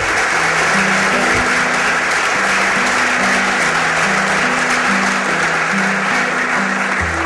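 Audience applauding steadily, with instrumental background music of low sustained notes underneath.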